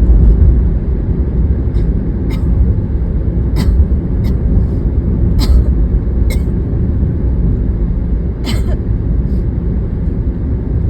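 Loud, steady low rumble of a car's road and engine noise inside the moving cabin. Short, sharp noises break through it every second or so.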